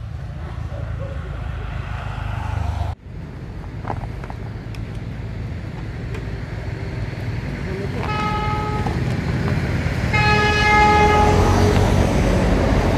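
Vehicle horn sounding twice, a short toot about eight seconds in and a longer one about ten seconds in, each a steady single pitch. A steady low rumble runs underneath.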